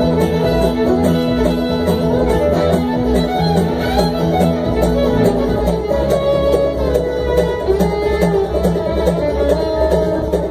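Live bluegrass string band playing, with acoustic guitar and mandolin picked in a steady rhythm and held melody notes over them.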